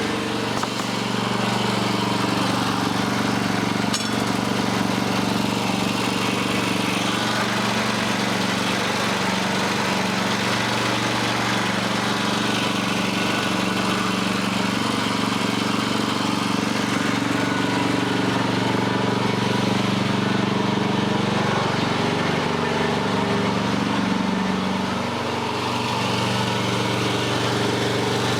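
Portable band sawmill's engine running steadily under load, with a noisy hiss over the engine note and its pitch dipping briefly about three-quarters of the way through.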